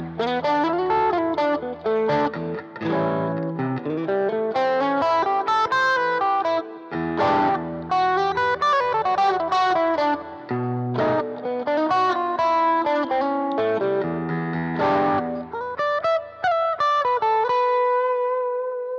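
Electric guitar, a Strat in pickup position 2, played through an Egnater Goldsmith pedal's overdrive with its boost engaged, into a Roland Blues Cube Hot transistor amplifier: a mix of chords and single-note lines, ending on a held note that rings out.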